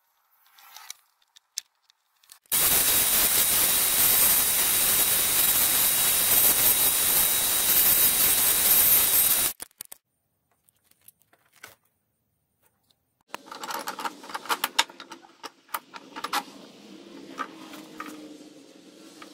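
Loud, steady noise from a woodworking power tool, with a faint high whine, runs for about seven seconds and starts and stops abruptly. Later come quieter scraping and clicks on wood.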